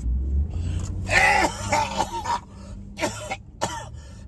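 A man coughing hard without covering his mouth: put-on prank coughs. A long hacking fit comes about a second in, then two short coughs.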